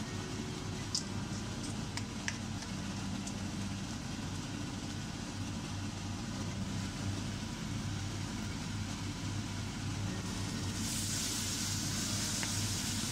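Grated raw mango frying in oil in a wok and being stirred with a wooden spatula, with a few light clicks of the spatula on the pan in the first seconds. The sizzle grows much louder about eleven seconds in as the mango spreads over the hot pan. A steady low hum runs underneath.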